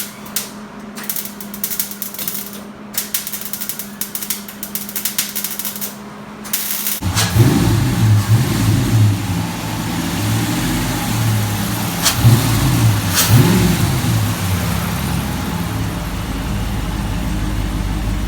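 Irregular clicking and clatter, then about seven seconds in a RAM 1500 pickup's engine starts, revs up briefly a couple of times, and settles into a steady idle: the first start after a torque converter swap.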